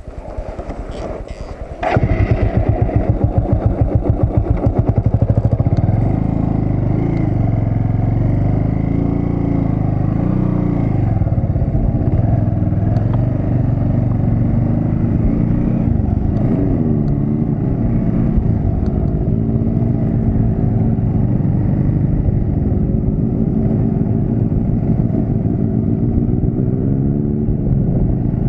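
Bajaj Avenger Cruise 220's single-cylinder engine, heard from the rider's seat: it runs quietly at first, gets suddenly louder about two seconds in as the bike moves off, then keeps running with revs rising and falling as it rides.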